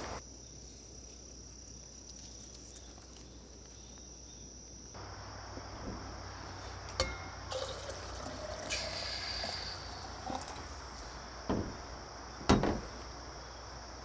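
Coffee poured from a stainless French press into an insulated tumbler, with a couple of sharp knocks as things are set down on a hard surface near the end, the second the loudest. Insects keep up a steady high buzz behind.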